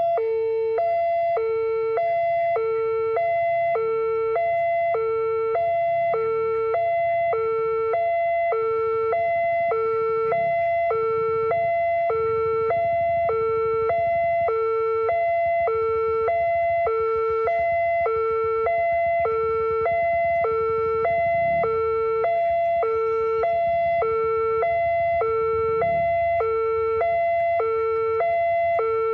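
Railway level-crossing warning alarm sounding a steady two-tone high-low pattern, about one high-low cycle a second, which signals that the barrier is closing for an approaching train.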